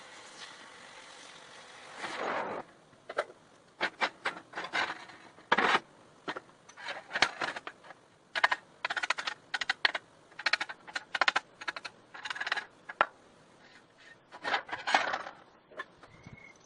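Steel parts clinking and scraping as they are handled, with a steady background hiss for about the first two seconds, then a longer scrape and many irregular sharp clinks and short scrapes.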